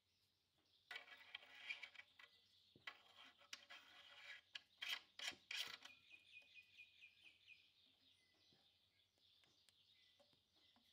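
Very faint rasping and small clicks of a threaded metal foot extension being screwed by hand onto the laser engraver's foot. Near the middle comes a faint quick run of high ticks, then near silence.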